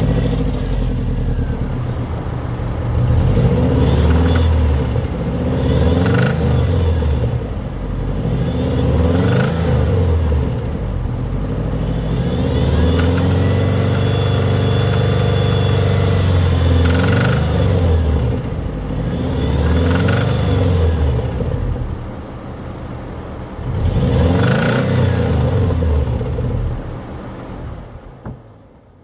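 Subaru EJ255 2.5-litre turbocharged flat-four engine being revved again and again, rising and falling with one longer hold in the middle, and dropping away near the end. It is run around 2500 rpm to show a noise the owner asks may be rod knock.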